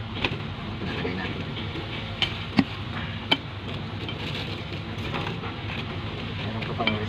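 Several sharp clicks and knocks from handling a metal oil filter canister and its parts, the loudest about two and a half seconds in, over a steady low hum.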